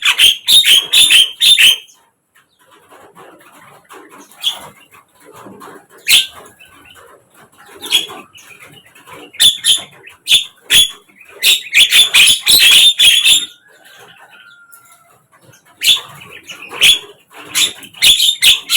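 Javan myna calls: loud, harsh, chattering bursts in clusters separated by short pauses, with a faint drawn-out whistle about two thirds of the way through.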